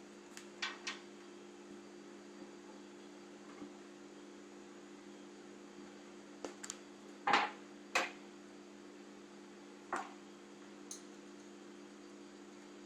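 Screwdriver and screws clicking and scraping against a metal computer case as a motherboard is screwed in: a few separate knocks, the loudest about seven seconds in, over a steady electrical hum.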